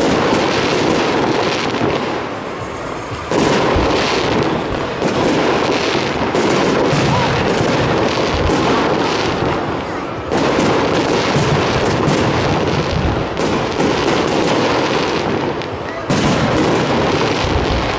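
Aerial firework shells bursting in rapid succession, a dense run of bangs and crackles, with a fresh louder volley about three seconds in and another near the end.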